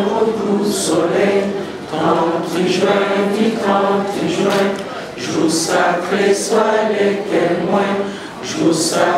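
A group of voices singing together without instruments, in held phrases a few seconds long.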